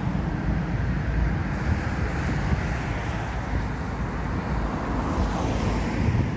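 Steady rumble of road traffic with wind buffeting the microphone; the hiss swells briefly about five seconds in.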